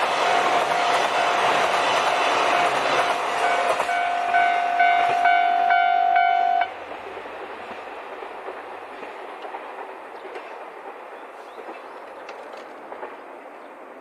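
Level crossing alarm ringing a steady pitched tone over the rail noise and wheel clatter of a KiHa 261 series diesel express running past; the alarm cuts off abruptly about six and a half seconds in as the train clears, leaving fainter background sound.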